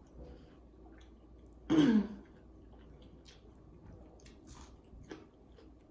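A person eating, with faint chewing and mouth clicks, and one loud throat-clearing with a falling pitch about two seconds in.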